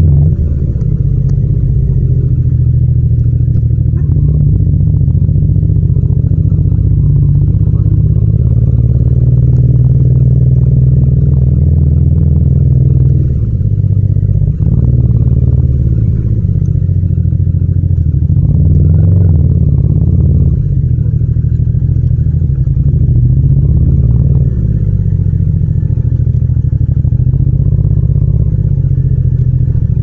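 Yamaha MT-07's 689 cc parallel-twin engine running at low speed in second gear, heard from the rider's seat. It makes a steady low drone whose note shifts a little a few times as the throttle changes.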